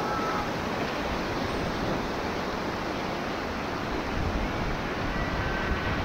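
Whitewater rapids rushing around an inflatable raft, a steady roar of churning river water, with wind buffeting the camera microphone.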